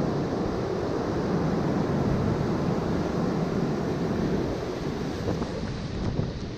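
Ocean surf breaking and washing up the sand, with wind rumbling on the microphone; the sound eases a little near the end.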